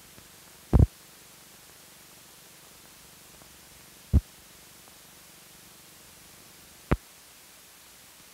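Steady hiss of an old film print's soundtrack running over blank leader, broken by three sharp pops: about a second in, about four seconds in, and about seven seconds in.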